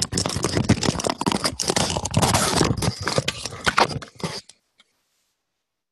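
Harsh crackling and scraping noise on a webinar's audio feed, full of sharp clicks with no voice in it. Then, about four and a half seconds in, the sound cuts out completely to dead silence: the audio drops out.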